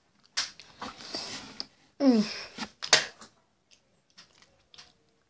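A boy's wordless vocal reactions to extremely sour candy: a breathy, wheezy gasp about half a second in, then a louder cry falling sharply in pitch about two seconds in, followed by a few faint clicks.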